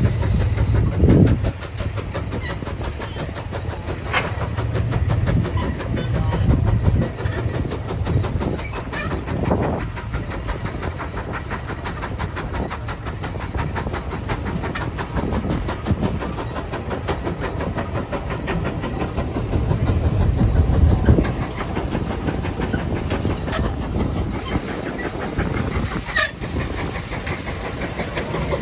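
150 Case steam traction engine working under heavy load, pulling a 44-bottom plow gang, its exhaust chuffing over the continuous rattle and rumble of the plows cutting through the soil. A couple of sharp clicks stand out, about four seconds in and near the end.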